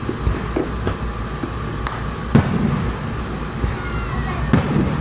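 Fireworks shells bursting in the air: several sharp bangs a second or so apart, the loudest about halfway through, over a steady low rumble.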